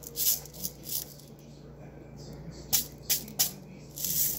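Sprinkles rattling inside a plastic shaker jar, shaken out over a cake in short bursts: a few quick shakes near the start, three sharp ones around three seconds in, and a longer shake near the end.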